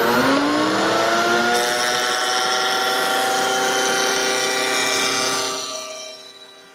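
Table-mounted router with a carbide jointing bit coming up to speed, its whine rising in pitch over the first second, then cutting along the edge of a plywood panel fed past the fence. The sound drops away sharply near the end.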